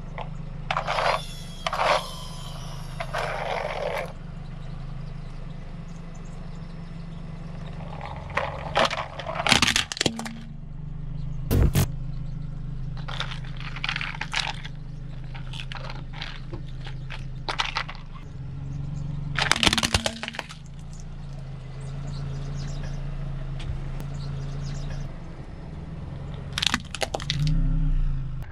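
A plastic toy armoured vehicle cracking and breaking apart under a car tyre, in several separate bursts of crunching and snapping. A car engine hums steadily underneath.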